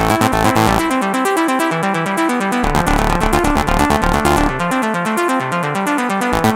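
Electronic music: fast, evenly pulsing synthesizer chords over a stepping bass line, the deep bass dropping out about a second in and coming back near the middle.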